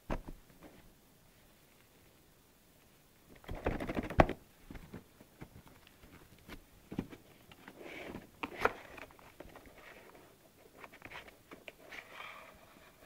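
Handling noises from a wand box being opened: a click, then a cluster of knocks and rubbing about four seconds in, followed by scattered clicks and short rustles.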